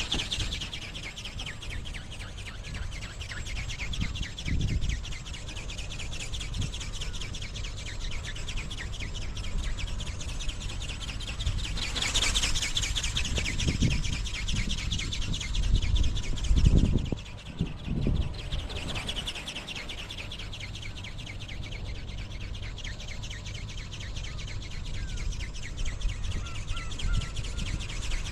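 Strong wind gusting on the microphone in low rumbling bursts, loudest in the middle. Over it runs a steady, fast, high-pitched chirring.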